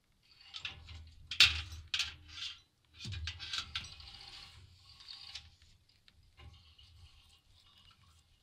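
A rope being handled in a small galvanized metal bucket, with scraping rustles and metal clinks. The loudest knocks come about a second and a half in and again at three seconds, then it tapers to light rope rustling.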